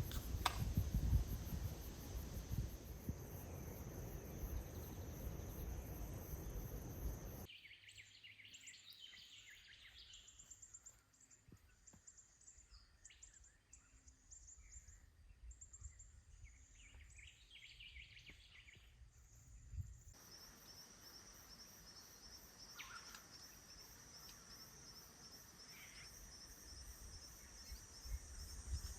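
Faint bush ambience. A steady high-pitched insect chorus plays over a low rumble for the first few seconds. Then a quieter stretch follows with birds calling. Near the middle the insect chorus comes back, with a few single bird calls.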